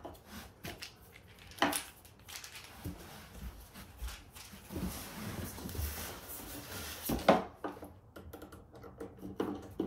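Light clicks and handling noise as a metal knob is screwed onto a drawer front by hand, with a sharp knock early on. Near the end the wooden drawer is turned over and set down with a louder knock.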